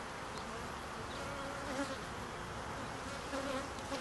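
Many honeybees buzzing in a steady, dense drone around an opened hive, stirred up as its boxes are lifted.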